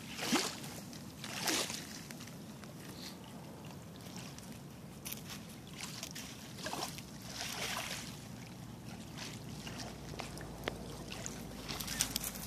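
Small waves lapping and sloshing at a gravel river shore, with a few brief splashy bursts and scattered crunches on the gravel.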